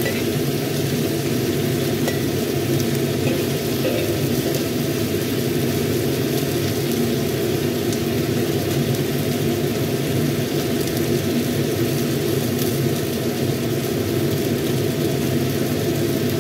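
Chicken pieces frying in a wok over a gas stove: a steady low rumble with an even hiss above it.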